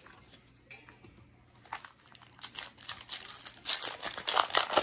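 Foil Yu-Gi-Oh booster pack wrapper being handled and torn open: a few light rustles, then dense crinkling from about two and a half seconds in.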